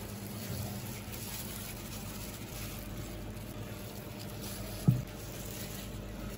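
Steady low electrical hum with faint soft handling of chicken drumsticks being coated in dry starch, and a single sharp knock about five seconds in.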